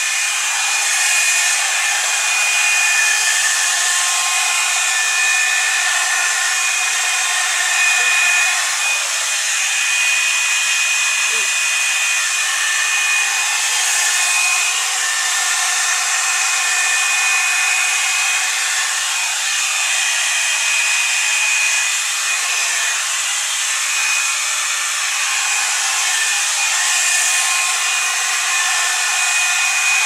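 Revlon One-Step Volumizer hot-air brush running on its low setting: a steady rush of air with a thin high whine from the motor, unbroken throughout.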